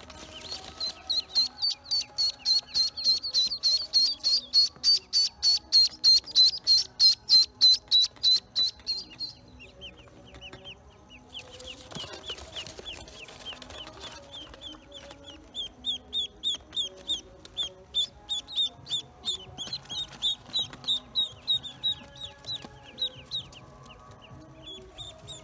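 Pekin and black ducklings peeping while being handled: a rapid run of loud, high peeps, about three or four a second. The peeping stops briefly about nine seconds in, then starts again as a long series of short, falling peeps.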